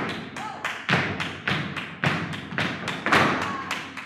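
Flamenco footwork (zapateado): several dancers' flamenco shoes striking the studio floor together in a steady rhythm of about four strikes a second, some strikes louder than others.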